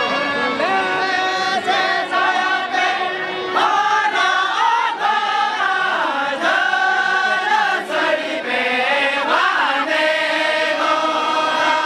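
A group of women singing a lagne song together in unison, long held notes gliding up and down with no break.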